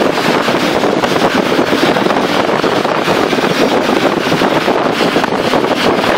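Steady rush of wind and road noise inside a long-distance bus running fast on a highway, with wind buffeting the microphone.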